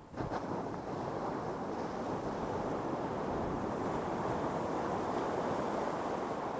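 Ocean surf breaking on a beach: the sound jumps up suddenly just after the start as a wave breaks, then a steady rush of surf holds on.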